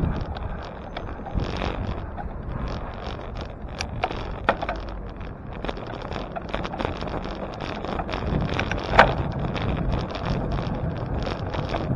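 Wind rushing over the microphone and low road rumble from riding a bicycle, with scattered light rattles and clicks and one louder clack about nine seconds in.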